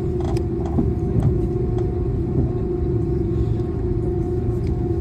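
Airbus A330 jet engines and cabin noise heard from a window seat: a steady rumble with a steady hum over it, and a few faint clicks in the first couple of seconds.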